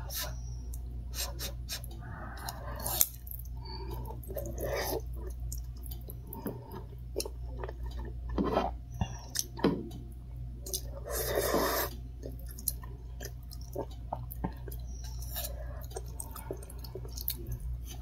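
Close-up eating sounds: chewing and slurping of cup-ramen noodles, with short wet clicks and smacks throughout and one longer slurp a little past the middle, over a low steady hum.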